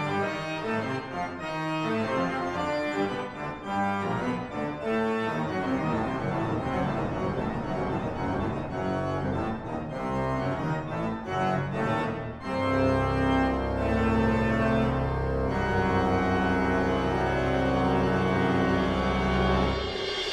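Organ pedal solo in an organ concerto: rapid running notes on the pedals, then, about two-thirds of the way in, louder held low pedal notes under sustained chords. Near the end a large suspended cymbal roll begins to swell.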